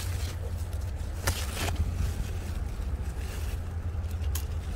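Low steady rumble on a handheld phone's microphone, with a few short rustles of squash leaves brushing against it, about a second in and again near the end.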